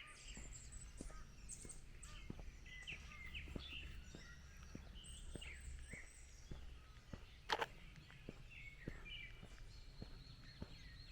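Several small birds chirping and trilling in woodland, with soft footsteps on a path at an even walking pace, under two steps a second. One sharp click stands out about seven and a half seconds in.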